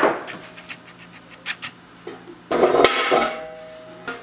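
Metal tools and parts being handled on a workbench: a sharp knock at the start, a few light clicks, then a clattering metallic rattle about two and a half seconds in.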